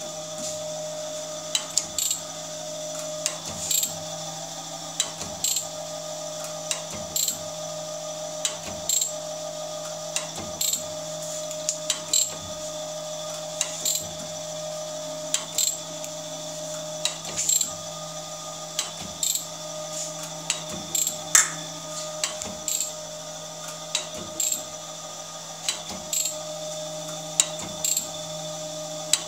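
Jones & Shipman 540AP surface grinder running on its hydraulic power feeds: a steady hum and whine from the motors and hydraulic pump, broken by a sharp mechanical click every couple of seconds from the automatic feed mechanism as the table traverses back and forth.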